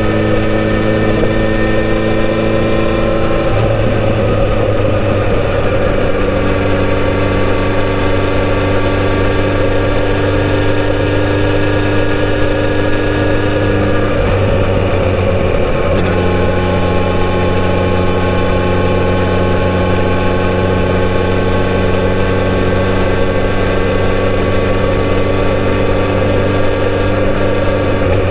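Kawasaki Z900RS inline-four engine on its stock exhaust running steadily at cruising speed, its note changing twice, about three seconds in and again around fifteen seconds in, over wind and road noise.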